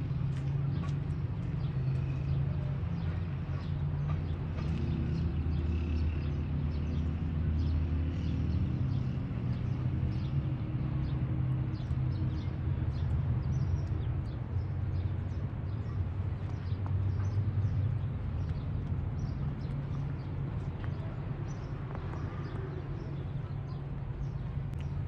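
Kittens crunching dry cat food: a busy run of small, crisp clicks over a steady low rumble.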